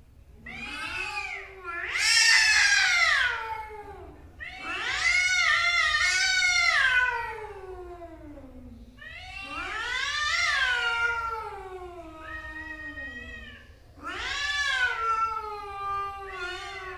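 Angry male cats yowling at each other in a fight: a run of long, wavering caterwauls, each rising and then sliding down in pitch, with short gaps between them.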